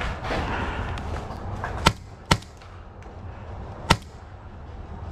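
First Strike FSC paintball marker in its carbine kit firing three sharp single shots: two close together about two seconds in, and a third about a second and a half later.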